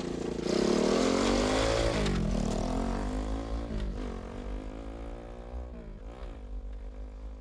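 Racing ride-on lawn mower engine accelerating hard. Its pitch climbs, drops sharply about two seconds in, then rises and falls again a few times as it gets steadily quieter.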